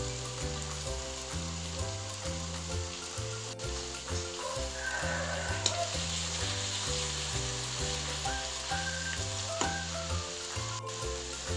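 Ground red chili spice paste sizzling as it fries in oil in a wok, stirred with a metal spoon, with a few sharp clicks. Background music with a repeating low bass line plays throughout.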